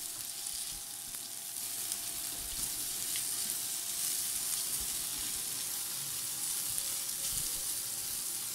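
Diced potatoes sizzling steadily in hot oil in a nonstick frying pan over a gas flame, with the soft scrape of a slotted spatula stirring them.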